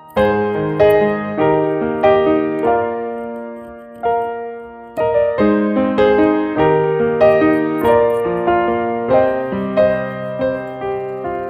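Background piano music: a gentle tune of chords, a new note or chord struck about every half second.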